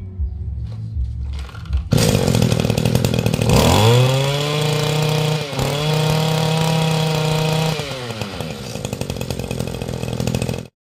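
Small two-stroke brush cutter engine idling, then getting louder and revving up to high speed, with a brief dip in the middle. It then drops back to idle near the end.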